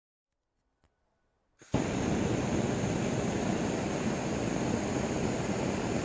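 Flamethrower firing: a faint click, then about two seconds in a sudden, steady rush of flame that holds at an even level and cuts off sharply at the end.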